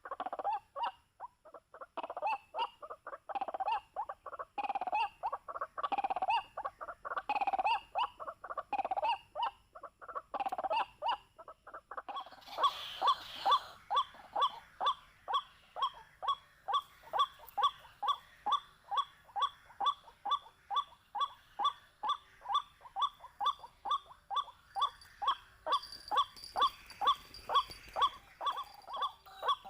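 White-breasted waterhen calling. First come harsh repeated calls a little more than one a second; about twelve seconds in, these change to a fast, even run of sharp notes, two to three a second.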